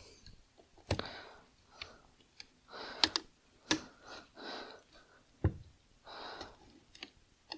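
Sharp metallic clicks and taps, about seven scattered one by one, as a circlip is worked onto the gear cluster shaft of a Vespa PK 50 XL2 gearbox with circlip pliers.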